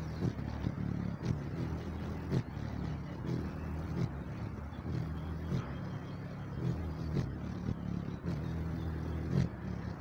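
Hummingbird wings humming as the bird hovers close by: a low buzzing hum that shifts in pitch as it moves, with a few faint clicks.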